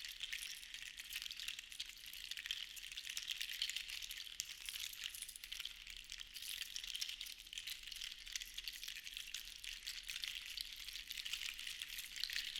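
Seashells rattling together, a dense patter of tiny clicks that swells and fades in slow waves every few seconds.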